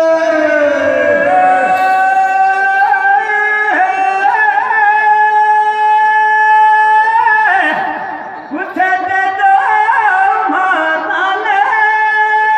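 Male voices singing Teja gayan, the Rajasthani folk ballad singing of Tejaji, in long drawn-out held notes. The phrases break off and restart about every four seconds, with a brief dip about eight seconds in.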